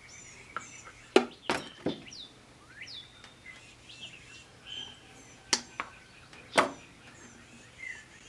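Small birds chirping repeatedly in the background, with several sharp clicks and taps from small parts being handled, the loudest about a second and a half in and again after six seconds.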